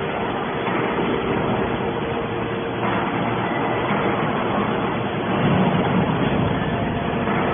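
Hydraulic can baler's electric motor and pump running with a steady mechanical hum, swelling slightly about five and a half seconds in.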